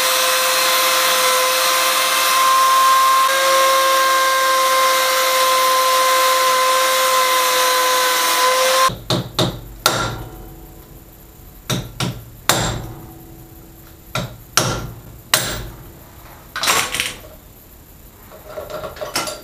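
Angle grinder cutting through a steel ATV drive chain, a steady high whine with hiss that stops abruptly about nine seconds in. Then a dozen or so sharp metal-on-metal hammer blows at uneven spacing.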